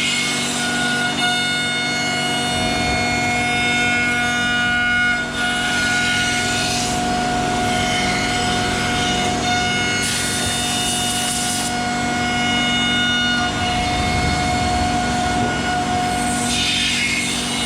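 CNC router spindle running with a steady whine made of several fixed tones while it mills a wooden chair seat. The hiss of the cut swells and fades every few seconds as the bit passes through the wood.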